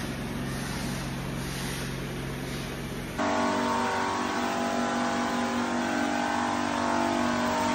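Steady low machine hum, then about three seconds in a louder, steady whine from the electric pump of a battery-powered pump sprayer spraying detergent onto floor tile.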